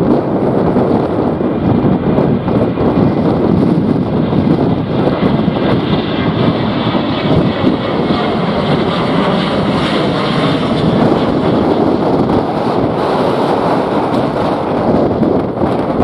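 Boeing 737-800's CFM56 jet engines at takeoff thrust, a loud steady roar with a higher whine that builds through the middle as the jet climbs past. Gusty wind buffets the microphone.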